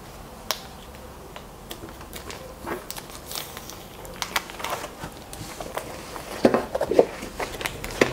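Hands handling a pack of 12x12 cardstock: scattered rustles and small clicks of stiff paper sheets being lifted and turned, with a few louder rustles about six and a half to seven seconds in and again near the end.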